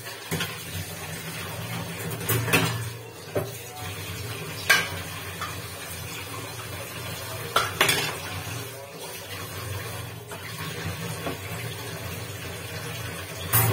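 Steel utensils and pots clanking against each other now and then as dishes are washed at a kitchen sink, over a steady low hum.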